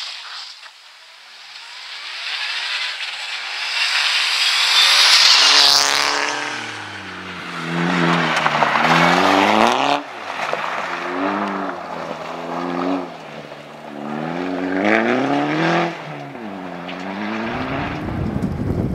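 Opel Corsa OPC rally car at full effort on a gravel stage. It passes close with a loud rush of tyre and road noise that peaks about five to six seconds in, its pitch falling as it goes by. Then the engine revs climb and drop sharply several times as the driver lifts and shifts.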